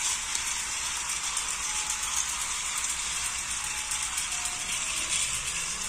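Many small battery-powered toy trains running at once on plastic track, a steady, dense rattle of their little gear motors and wheels.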